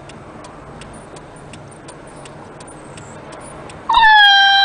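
A puppy gives one loud, long, high-pitched scream about four seconds in, holding a steady pitch. Before it there is faint, regular ticking, about three ticks a second.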